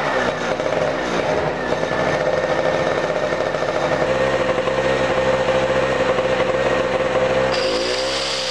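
Small portable generator's engine running steadily, its pitch still rising in the first second after starting. Near the end its pitch dips and recovers as a high whine joins in, the generator taking the load of an angle grinder being switched on.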